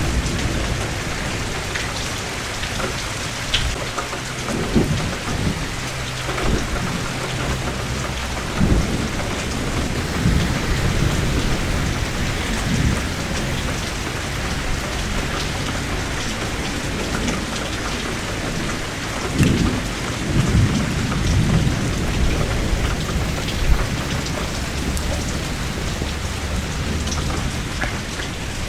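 Steady heavy rain, with rolls of thunder rumbling low several times.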